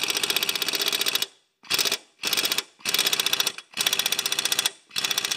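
Air impact wrench hammering a lawn mower's blade bolt tight in six short bursts of rapid blows, with brief pauses between them. The bolt is being driven up to about 200 foot-pounds to secure a blade that had worked loose.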